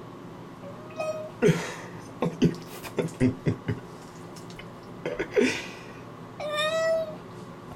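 Cat meowing with its face in bathwater, unhappy at being bathed: a short meow about a second in, then a string of short, sharp, gurgling bursts, and a longer, steady meow near the end.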